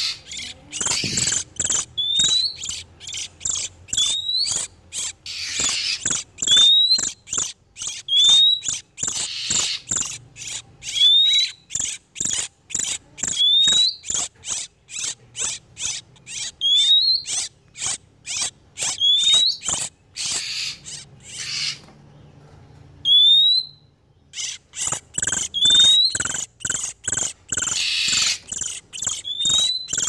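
Oriental magpie-robins giving breeding-condition calls, as used in a lure recording. Short rising whistles come every second or two over a dense run of sharp ticking notes, several a second, with a brief lull about three-quarters of the way through.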